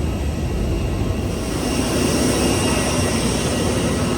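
Jet aircraft engine noise: a steady rush with a high whine that swells about a second in.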